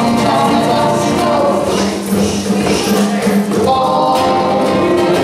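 A group singing a song together, with a djembe hand drum beating along and a shaker rattling.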